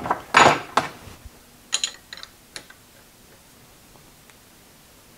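Ratchet wrench clicking and metal clinking as the nut on a lathe's quick-change tool post is tightened down. A handful of irregular sharp clicks and clanks, the loudest about half a second in, all in the first half.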